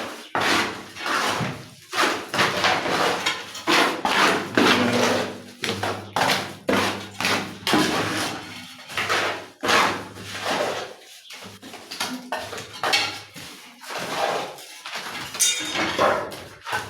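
Irregular clattering knocks and scrapes of hard tools and materials being handled during tiling work in a small room.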